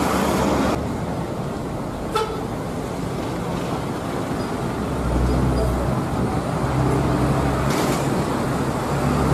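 Large bus engines running as coaches manoeuvre slowly, over a steady traffic rumble, with a brief horn toot about two seconds in.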